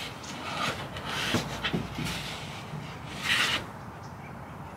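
Felt-covered plywood shelf rubbing and scraping against a van's ceiling as it is pushed up into place, with a few light knocks; the loudest scrape comes about three seconds in.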